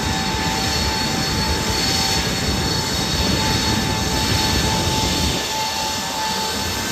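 Jet aircraft engine noise: a loud, steady rush with a constant high whine running through it.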